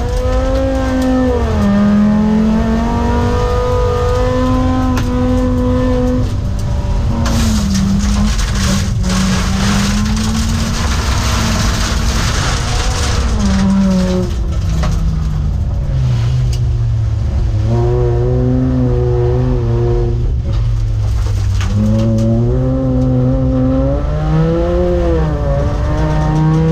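Volvo 850's five-cylinder engine racing hard on a rallycross track, its revs repeatedly climbing and then dropping as it accelerates and lifts off for corners.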